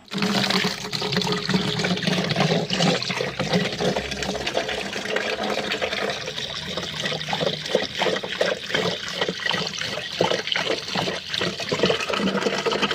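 A Labrador drinking, with water sloshing and splashing steadily. In the second half the laps come as a fast, regular run of a few per second.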